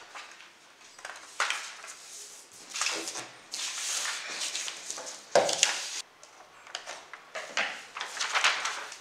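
Sheets of printer paper rustling and crinkling as they are handled, with scissors cutting through paper, in irregular bursts; the loudest comes a little over five seconds in.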